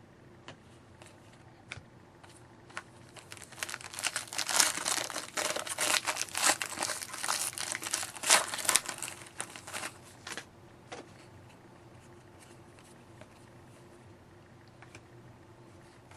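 A foil-type trading card pack wrapper crinkling and tearing as the pack is opened, a dense crackle lasting several seconds, with scattered light clicks of cards being handled before and after.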